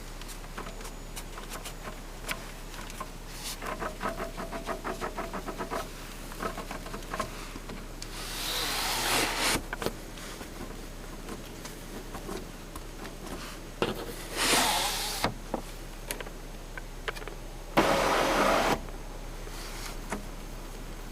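Rattle and creak from a car's sunroof, set off by pressing on it: a run of rapid clicking from about 3.5 to 6 seconds in, then three short, louder rasping bursts. This is the abnormal noise the owner hears from the sunroof while driving.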